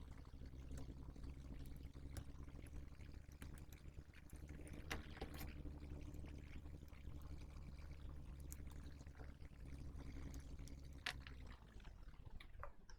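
Faint steady low electric hum from a bench appliance, with light clicks of handling and tools on the board. The hum cuts off about eleven and a half seconds in.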